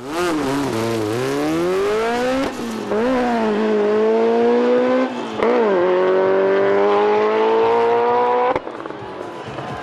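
Drag-racing car's engine at full throttle from the launch: the revs dip as it pulls away, then climb steeply, fall back at two gear changes and climb again, and the engine note cuts off abruptly near the end.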